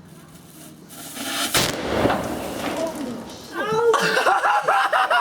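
Homemade bottle bomb, a plastic soft-drink bottle packed with gunpowder from firework cascades, going off: a short rising hiss, then one sharp bang about one and a half seconds in that dies away. Excited shouting and whooping follow from about halfway through.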